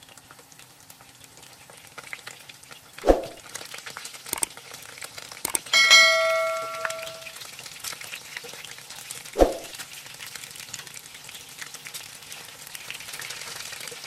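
Spring rolls frying in shallow oil in a pan, a steady fine sizzle and crackle, with metal tongs knocking against the pan twice. About six seconds in, a single bell-like ding rings out and fades.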